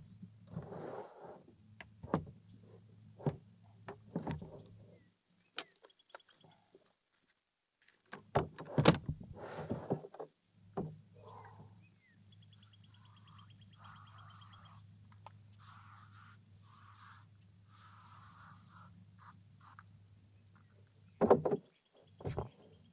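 Kayak paddle and gear knocking and rubbing against the plastic kayak hull in irregular bursts, loudest about eight to ten seconds in and again near the end, over a faint steady hum. In the quieter stretch in the middle come scattered faint animal calls and a brief fast ticking.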